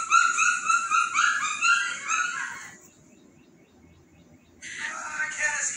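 A litter of pit bull puppies yipping and whining together, many short high calls overlapping, stopping about three seconds in. A louder, fuller sound comes in about a second before the end.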